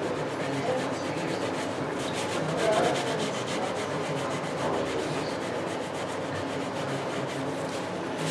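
Cloth rubbing against a turned wooden piece spinning on a woodturning lathe, a steady scrubbing hiss that takes on a fast, regular flutter about two seconds in.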